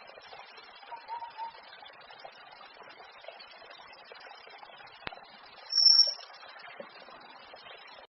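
Bird calls over a steady background hiss: a faint low warble about a second in and a loud, short, high-pitched call about six seconds in. The sound cuts off just before the end.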